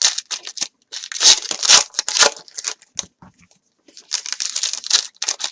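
Plastic or foil trading-card pack wrappers being torn and crinkled by hand, in a run of quick crackly bursts with a brief pause just after the middle.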